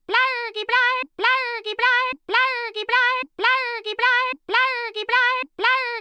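A high-pitched, voice-like sound with a quick rise and fall in pitch, repeated in an identical loop about once a second.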